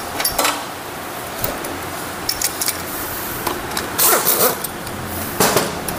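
Hand tools working on a motorcycle engine's gearshift parts: light metallic clicks and clinks, with louder rasping scrapes about four seconds in and again near the end.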